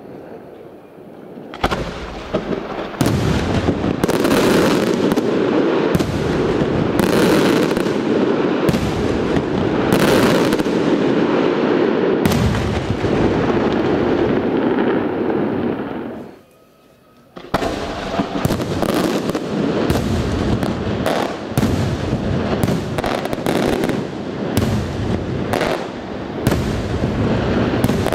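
Multibreak aerial fireworks shells bursting in rapid succession, mixing colour breaks with sharp salute reports. The barrage starts about a second and a half in and runs dense until a brief lull near the middle, then a second run of quick sharp reports follows to the end.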